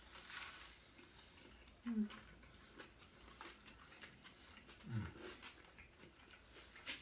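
Faint mouth sounds of someone eating a burger: wet chewing clicks throughout, with two short low sounds from the throat or mouth about two and five seconds in, the second dropping in pitch.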